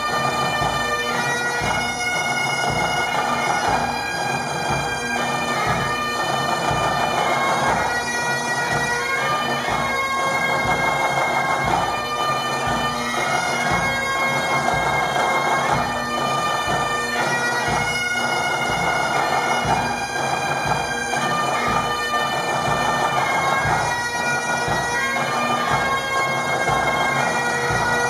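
Pipe band playing a tune: Great Highland bagpipes, their drones holding a steady tone under the chanter melody, with a steady bass drum beat underneath.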